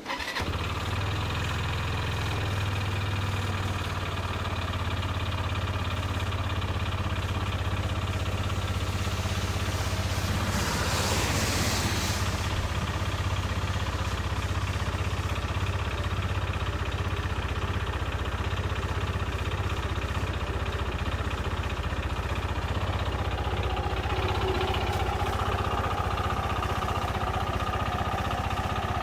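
Kymco Racing 150 scooter's single-cylinder four-stroke engine catching and settling into a steady idle. About eleven seconds in, a brief rush of hiss swells and fades over the running engine.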